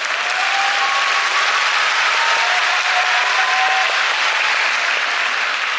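Sumo spectators applauding and cheering, swelling up near the start and holding steady, with a few voices calling out above the clapping.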